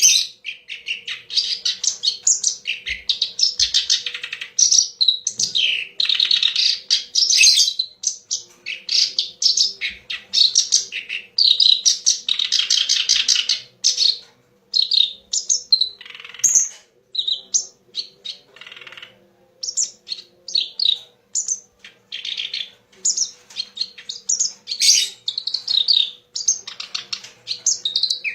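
Kerak basi (reed warbler) singing a long, fast, chattering song of harsh repeated notes, broken by short pauses; a faint steady hum underneath.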